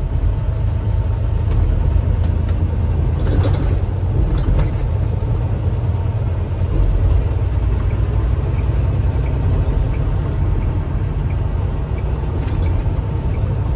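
Semi-truck's diesel engine and road noise heard inside the cab, a steady low rumble as the truck drives and gains speed.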